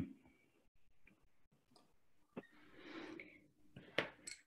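Near silence on a video call, broken by a few faint clicks (about two seconds in and again near the end) and a soft noise lasting under a second between them.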